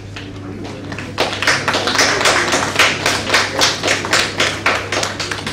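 Audience applauding, starting about a second in and easing off near the end, over a steady low hum.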